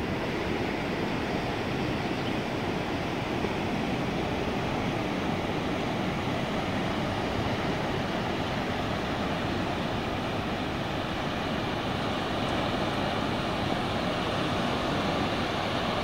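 Sea surf washing onto a rocky shore of black volcanic boulders: a steady, unbroken rush of waves.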